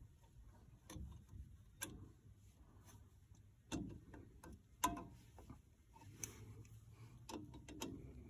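Sharp metallic clicks and clinks at irregular intervals, about seven in all, the loudest a little under five seconds in, as drum-brake springs, shoes and hand tools are worked into place on a 1989 Dodge Dakota's rear drum brake.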